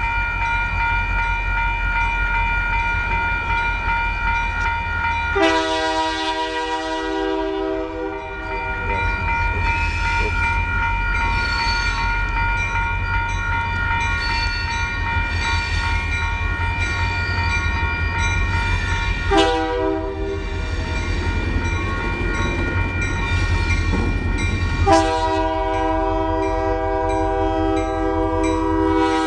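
A diesel locomotive's air horn sounds three times as it nears a grade crossing: a long blast about five seconds in, a short one near the middle, and another long blast near the end. Under the horn, the crossing's warning bell rings steadily and the locomotive's engine rumbles low.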